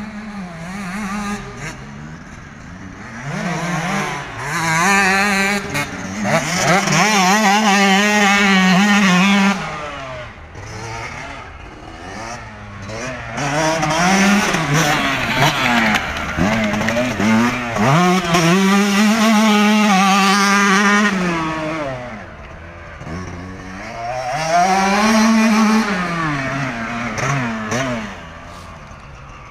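Yamaha YZ125 two-stroke motocross bike ridden round a dirt track, its engine revving up and dropping back again and again as the rider works through the gears. It grows loud three times as the bike comes near and fades between, the middle stretch the longest.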